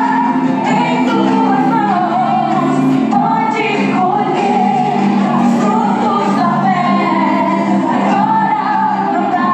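Gospel song playing loudly, with voices singing over the band accompaniment.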